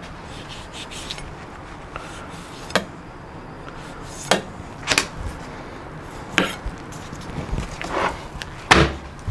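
Knife cutting the skin off a half pork belly on a wooden cutting board: a handful of short, sharp knocks of blade and meat on the board at irregular intervals, over a steady low background noise.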